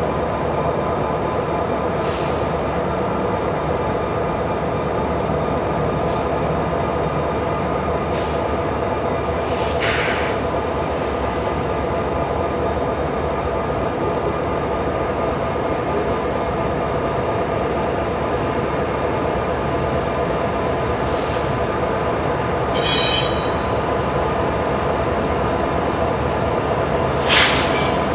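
Freight train rolling through a rail yard: a steady rumble with held high-pitched wheel squeal, and a few short sharp knocks, the loudest near the end.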